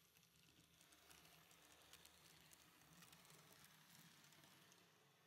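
N-scale model of a class 614 diesel railcar running along the track: a faint whirring with small ticking clicks from the wheels and motor, growing louder as it passes close and easing off near the end.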